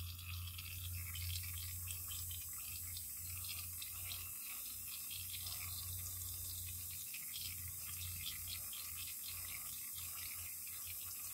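Airbrush spraying aluminum paint: a steady hiss of air through the nozzle, with a low hum underneath.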